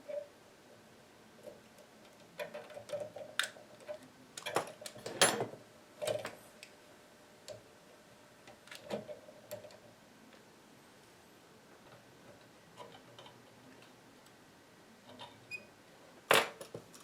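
Scattered clicks and light taps of small tools and parts being handled during work on an antique radio chassis, busiest a few seconds in, with a sharp click near the end.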